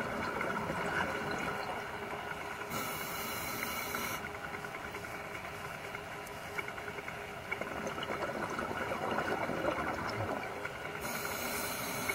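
Steady hissing water noise recorded underwater on a scuba dive. A sharper, brighter hiss lasts over a second about three seconds in and comes again near the end, and the sound cuts off abruptly at the end.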